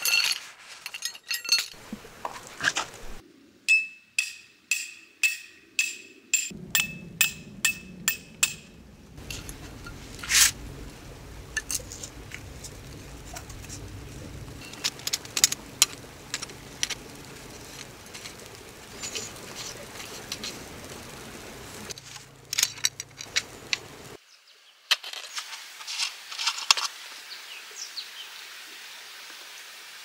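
Metal camping gear being handled in the snow: a run of ringing metallic strikes about two a second, then scattered clinks and taps.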